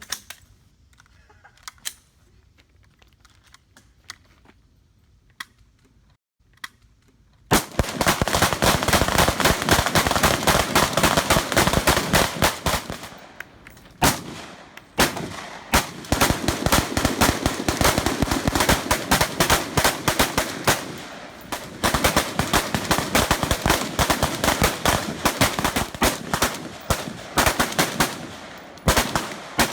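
Several AR-15 rifles firing together in rapid, overlapping shots. They open up about seven seconds in after a quiet lead-in, then keep going as a near-continuous volley with a couple of short lulls.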